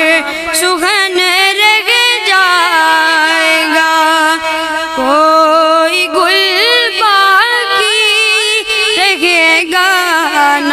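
A boy's voice singing an Urdu naat solo into a microphone, in long held notes with wavering melodic ornaments.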